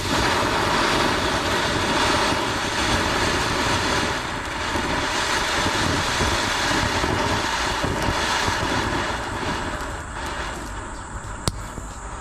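Steady engine noise with a rushing hiss, starting abruptly and easing a little near the end, with a single sharp click shortly before the end.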